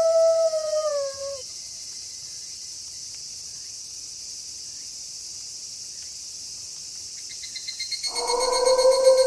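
Wolf howling: one long held note that bends down and fades out just over a second in, and a second howl begins near the end. Between the howls, night insects keep up a steady high hiss, and a faster pulsing trill joins shortly before the second howl.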